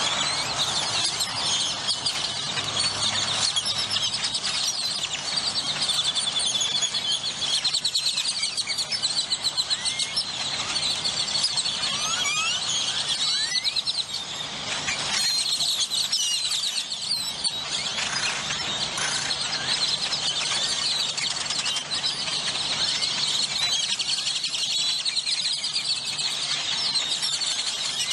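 A large flock of great-tailed grackles calling all at once: a dense, continuous chorus of high squeaky chatter and rising whistles, with a faint low hum of the moving car beneath.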